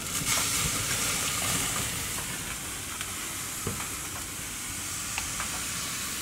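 Steak sizzling on a hot grill grate during its final sear, a steady hiss with scattered small pops and crackles.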